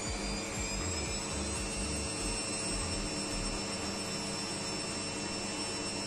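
Bosch Maxx 7 washing machine spinning its drum in service test mode, the motor whine rising slowly as the spin speeds up from about 260 to 300 rpm, over a steady running noise and an uneven low drum rumble. This is the test program's low-speed spin check.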